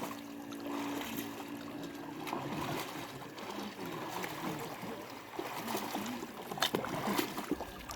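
Quiet sloshing and trickling of water as a person swims slowly, moving through the water without splashing.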